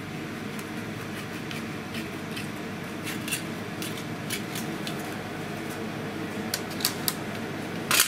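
Snap-off utility knife trimming double-sided tape along the edge of a plastic frame: a scatter of short scratchy cuts and scrapes over a steady background hum, with a sharper tap near the end.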